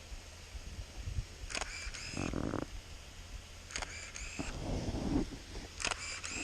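Canon film SLR working three times in a row, each a click with a short high motor whir as it fires and winds the film on, with duller handling noise between.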